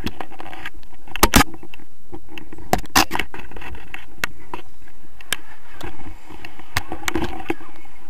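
Steady wind noise on an action camera's microphone, with repeated sharp clicks and knocks from paragliding harness buckles, carabiners and the camera mount being handled.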